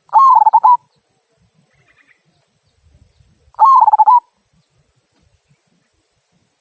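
Zebra dove (perkutut) cooing, in the local type's 'kung' voice: two loud trilled coos of under a second each, about three and a half seconds apart.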